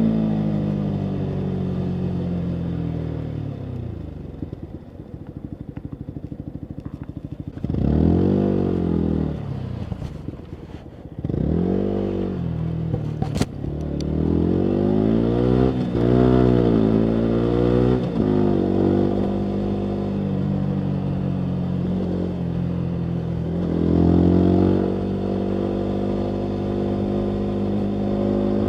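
Yamaha MT-125's single-cylinder 125 cc four-stroke engine through a full Akrapovic exhaust. It slows off the throttle at the start, then runs low with a pulsing beat for a few seconds. It then pulls away with revs rising and dropping through several gearchanges, with one sharp pop about halfway through, and settles to a steady cruise.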